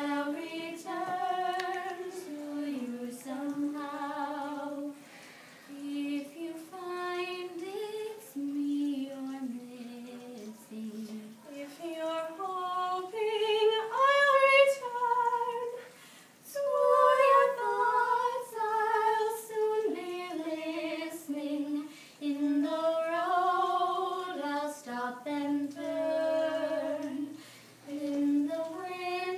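Two young women singing a song together without accompaniment, in phrases separated by brief breaths.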